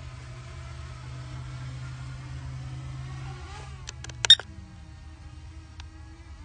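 Holy Stone HS175D drone's motors buzzing steadily; the buzz drops in pitch about three and a half seconds in as the drone throttles back. A quick cluster of sharp clicks about four seconds in is the loudest sound.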